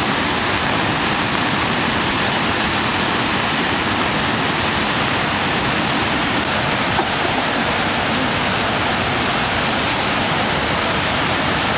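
Floodwater rushing steadily.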